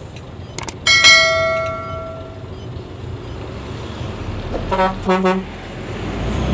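Truck engine rumbling in the cab. Just before a second in there are mouse clicks and a ringing notification-bell chime that fades over a second or so. About five seconds in come a few short horn toots, and the low rumble swells toward the end as a loaded logging truck passes close by.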